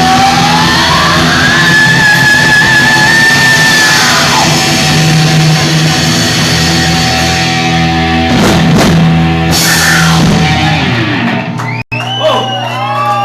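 Rock band playing live: a distorted electric guitar slides up to a high note and holds it with vibrato over sustained chords, with a few drum hits as the song closes. Near the end the sound cuts out for an instant, then crowd whoops and cheers follow.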